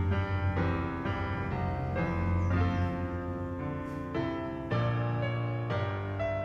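Background piano music: a slow, gentle melody of sustained notes, with a new note or chord about every half second.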